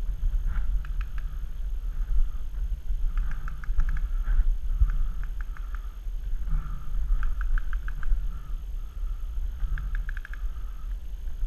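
Paintball markers firing in several bursts of rapid shots, over a steady low rumble of wind and handling noise on the GoPro microphone.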